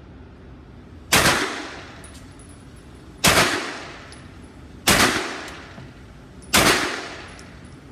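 CZ Scorpion EVO 3 S1 9mm carbine firing four single semi-automatic shots, roughly one and a half to two seconds apart, each with an echoing tail off the walls of an indoor range.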